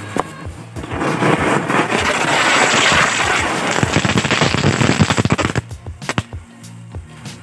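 Firecrackers going off in rapid succession: a dense crackle of bangs from about a second in, thinning to a few last separate cracks near the end.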